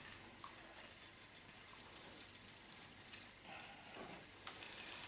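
Faint patter of granular bonsai substrate being poured into a pot.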